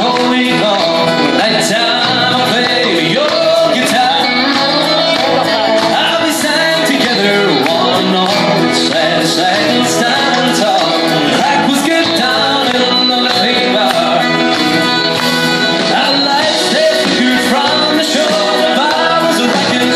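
Live country band playing, with piano accordion, drum kit and electric guitars.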